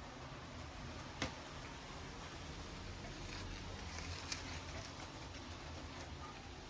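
Quiet, steady room noise broken by two short, sharp clicks about three seconds apart.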